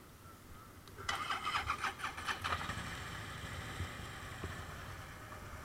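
Motorcycle engine cranked and started about a second in, a quick run of rapid strokes as it catches, then running steadily and gradually settling.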